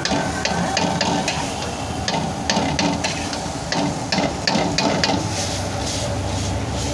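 Metal spatula scraping and clinking against an iron wok as chowmein noodles are stir-fried and tossed: quick, irregular clinks over a steady frying hiss.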